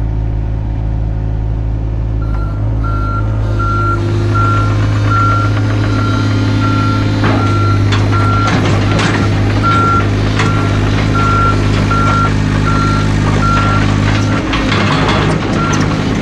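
Mini excavator's diesel engine running steadily while its travel alarm beeps in a rapid, even pattern, starting about two seconds in, as the machine tracks up the loading ramps onto a trailer. Metal clanks and rattles from the tracks and ramps join from the middle on.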